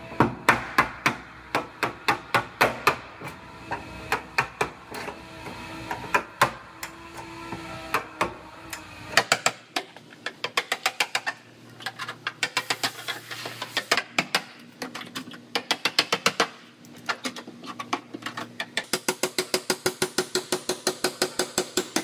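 Hammer driving a steel chisel between spot-welded sheet-metal panels of a car body: quick runs of sharp metallic strikes, about three to four a second.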